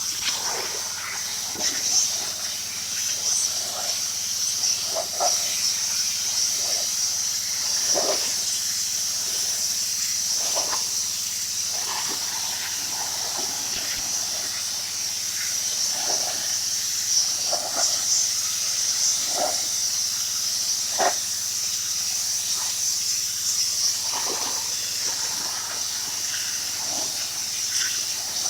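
Pressure washer spraying through a 40-degree white nozzle tip held close to deck boards: a steady hiss over the machine's steady hum, with short swells every second or two as the spray sweeps across the wood.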